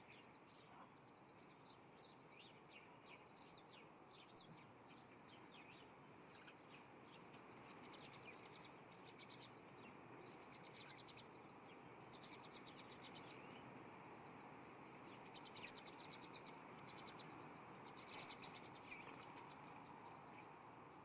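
Faint small birds chirping, with scattered short calls and a few quick trills of rapidly repeated notes, over a steady background hiss.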